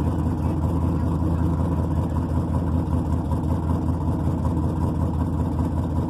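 Engines of drag-race vehicles idling, a steady low-pitched running sound with no revving.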